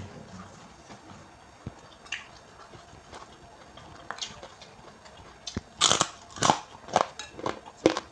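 Close-up chewing of instant noodles with raw bean sprouts, the crisp sprouts crunching between the teeth. Soft scattered clicks at first, then loud, sharp crunches about two a second starting near six seconds in.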